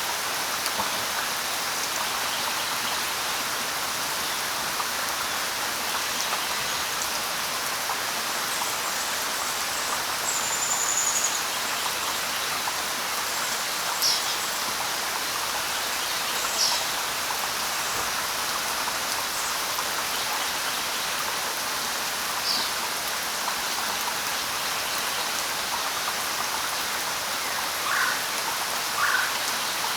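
Steady light rain pattering, with a bird giving scattered short, high chirps and a thin whistle, then three lower calls near the end.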